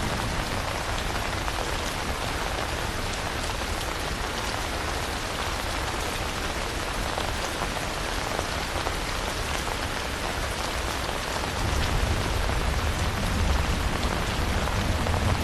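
Steady heavy rain falling, an even hiss of drops. A low thunder rumble builds in the last few seconds.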